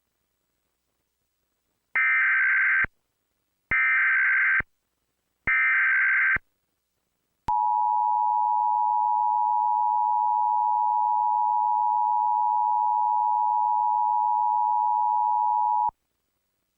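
Emergency Alert System SAME header: three short bursts of shrill data tones, each just under a second long and about a second apart. They are followed by the two-tone EAS attention signal, a steady tone held for about eight seconds that cuts off sharply, announcing an AMBER Alert message.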